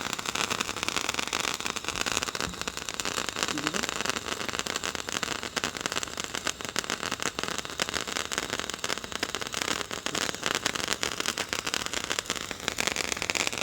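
A handheld firework burning, spraying sparks with a steady hiss and a dense crackle.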